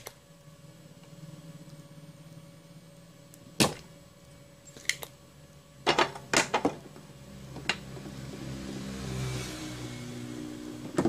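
Spring-loaded desoldering pump (solder sucker) snapping as it is fired: about six sharp clicks, the loudest a few seconds in and a quick cluster a little later, over a faint steady hum.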